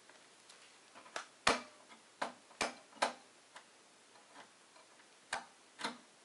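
Sharp metallic clicks and taps from hands working the rear expansion-slot bracket of a steel desktop PC case while a PCI wireless card is fitted. About seven clicks come in two groups, the loudest about a second and a half in, with a quiet gap of about two seconds between the groups.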